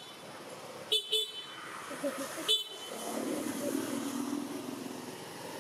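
Short, flat-pitched vehicle horn toots, a quick double toot about a second in and a single toot about two and a half seconds in, followed by a steady low hum of a passing vehicle.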